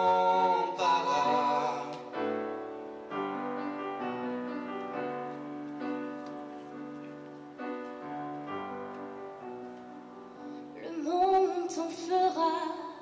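A woman sings the word "incomparable" on a held note over piano accompaniment, then the piano plays chords alone, and her voice comes back about eleven seconds in.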